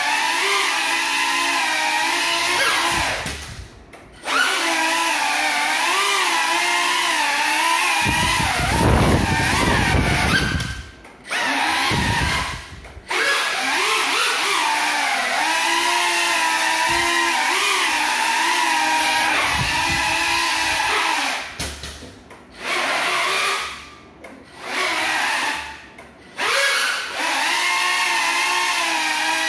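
Small FPV quadcopter's electric motors whining on broken propellers, the pitch rising and falling with the throttle. The motors cut out briefly several times, most often in the last third, and a low rush of air comes through about eight seconds in.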